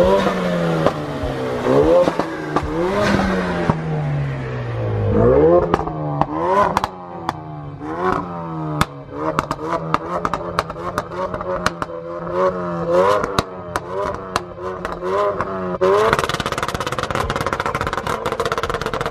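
Ford Focus RS's turbocharged four-cylinder engine revved over and over in quick blips, the pitch climbing and dropping each time. From about six seconds in, a rapid string of sharp exhaust pops and crackles rides on the revs, and near the end the engine is held higher with a fast crackle.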